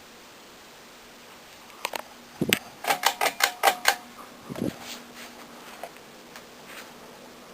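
Steady air noise of a running ceiling fan, broken about two seconds in by a few sharp clicks, a low thump, and then a quick run of about six clicks. A second low thump and a few fainter clicks follow.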